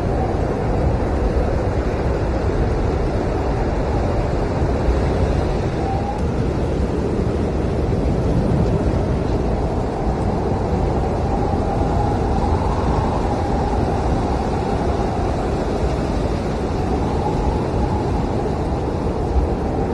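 Blizzard wind howling, a steady loud roar with a faint whistle that slowly rises and falls.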